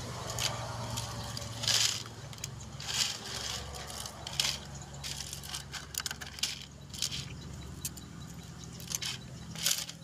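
Thin clear plastic clamshell food containers being handled, crackling and clicking, with dry cat kibble rattling into them in irregular bursts.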